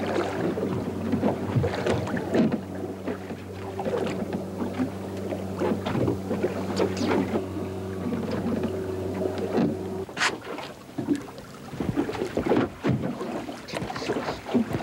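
Outboard motor of a small fishing skiff idling with a steady hum, which stops about ten seconds in. Irregular knocks and splashes against the hull run throughout.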